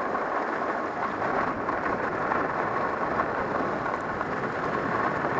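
Steady rushing noise of skiing downhill on freshly groomed corduroy snow: wind over a helmet-mounted camera together with skis running on the snow.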